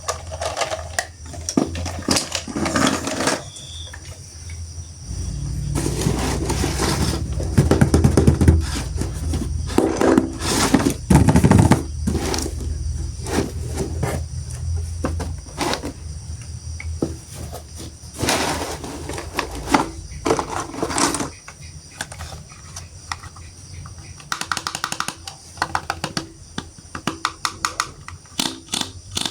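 Hard plastic toy parts being handled, with scattered clicks and knocks, a low rumble through the middle, and a quick run of small clicks near the end.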